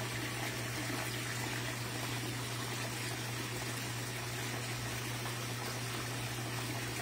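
Steady rushing of a shallow mountain river flowing over rocks.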